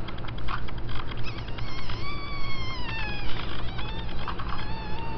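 Cat meowing: a few short hiccup-like sounds in the first second or so, then one long meow falling in pitch about two seconds in, and a second long, steady meow starting a little before the end.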